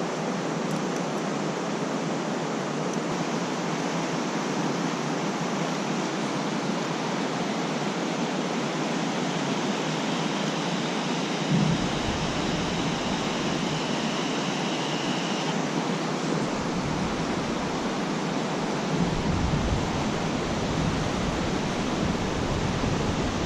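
Steady rushing of a creek running high after rain. A low rumble joins it about halfway through.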